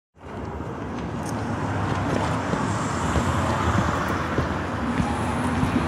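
Street traffic ambience: a steady rumble and hiss that fades in just after the start and slowly grows louder.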